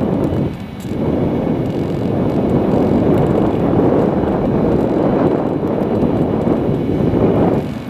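Steady rushing wind noise buffeting the microphone, easing briefly about half a second in and again near the end.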